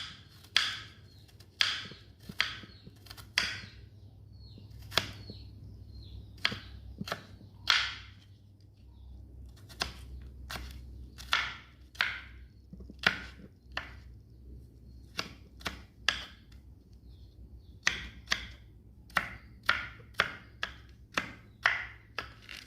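Knife chopping a garlic clove into small pieces: irregular sharp knocks, about one or two a second, in runs broken by a few short pauses.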